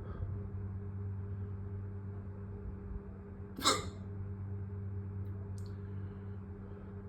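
A single sharp hiccup from a person, a little past halfway through, part of a long-running bout of hiccups. A steady low hum lies under it.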